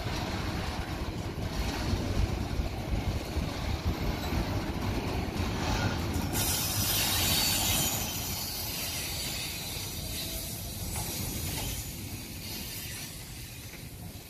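Container wagons of a freight train rolling past with a steady low rumble. About six seconds in a high-pitched wheel noise joins in suddenly, then fades over the next few seconds.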